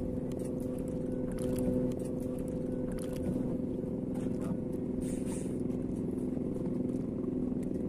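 Boat engine running steadily with an even hum, and a few faint splashes of a hooked fish at the water's surface.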